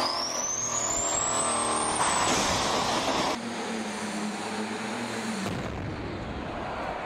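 A twin-turbo diesel engine on a dynamometer running away, its whine rising steadily in pitch for about two seconds. Partway through, the sound cuts to a pulling tractor's engine running hard.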